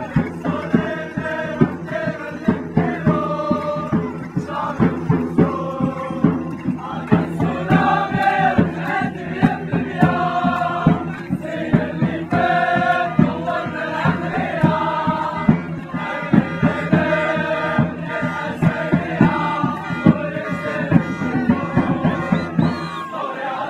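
A large crowd of football ultras, men's voices, singing a chant together in unison over a fast, steady beat.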